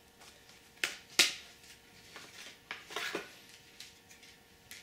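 A few sharp clicks and knocks of Blu-ray disc cases and packaging being handled and set down, the loudest about a second in and a small cluster near three seconds.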